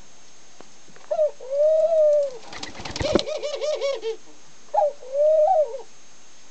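Ringneck doves (Barbary doves) cooing. A short note runs into a long, arched coo about a second in, and the same call comes again near five seconds. Between them, around three seconds, there is a quick rolling run of short notes, the dove's laughing call, over a brief clattering noise.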